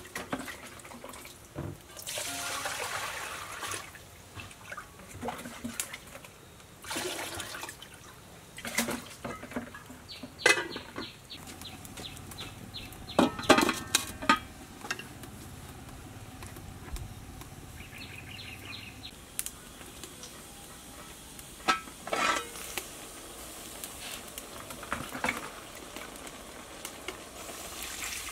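Water pouring and sloshing, with clanks of stainless steel pots and lids being handled; the loudest clanks come a little past the middle.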